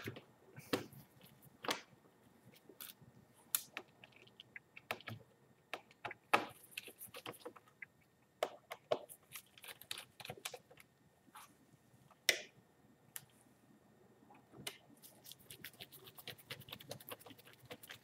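Irregular, scattered clicks and taps of a Dell XPS 18 tablet's plastic back case being pressed down and worked with a small screwdriver while its corner screws are driven back in.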